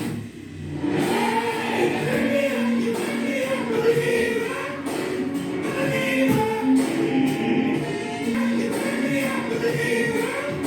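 Background music: a song with a singing voice over held, changing notes.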